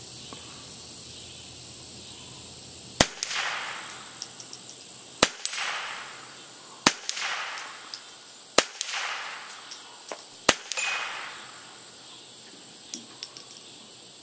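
Five .22 LR rifle shots from a Ruger 10/22, about two seconds apart, each followed by the ring of the bullet hitting a hanging AR500 steel gong.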